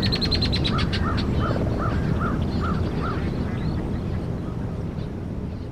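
Birds calling over a steady low rumble of outdoor background noise. A fast, high trill in the first second is followed by a series of seven short calls, each rising and falling, about three a second.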